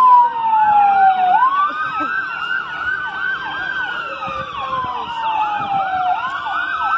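Several fire engine sirens sounding at once. One long wail falls slowly in pitch and then sweeps quickly back up, twice, over the fast repeating whoops of another siren.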